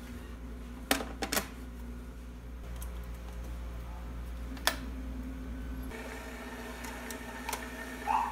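A handful of sharp clicks and knocks as an electric kettle and other kitchen things are handled and set down on a counter, the loudest about a second in and near five seconds in, over a steady low hum.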